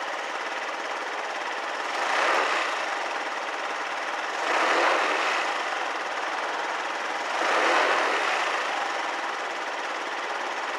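Yamaha VOX scooter's 49cc four-stroke single-cylinder engine idling with the scooter standing still, swelling louder three times as the throttle is blipped briefly.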